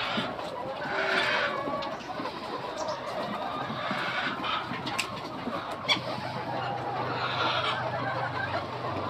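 A flock of chickens in a poultry house, many birds clucking and calling over one another, with scattered sharp clicks. About six seconds in, a low steady hum joins them.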